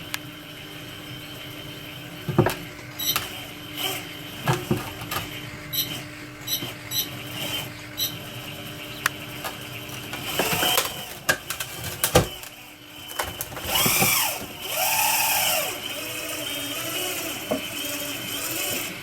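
Hydraulics of a radio-controlled model Liebherr 956 excavator running: a steady pump hum that whines up and down in pitch about two-thirds of the way through as the arm moves. Several sharp knocks and clicks come as the bucket is picked up on the hydraulic quick coupler.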